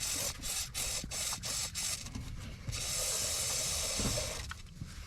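Aerosol spray can hissing as lubricant is sprayed onto an ATV's drive chain: a quick run of short spurts, then a longer steady spray that stops about four and a half seconds in.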